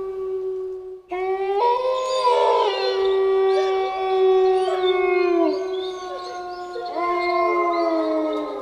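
A chorus of wolves howling. One long, steady howl breaks off about a second in, then several wolves start overlapping howls at different pitches that slide downward as they trail off. Another howl rises in about seven seconds in.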